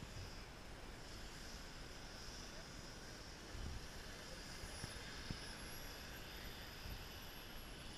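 Distant whine of a Falcon 120 model jet's gas turbine, a faint high whistle that comes in about halfway through, rises and then slowly falls in pitch. Wind rumbles on the microphone throughout.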